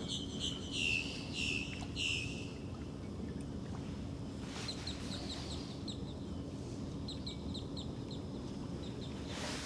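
A bird calling in runs of short, high, repeated notes: about eight quick notes in the first two seconds, then shorter runs about five seconds in and again seven to eight seconds in.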